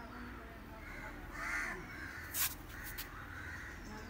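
Crows cawing repeatedly. Two sharp clicks come about two and a half seconds in and again near three seconds.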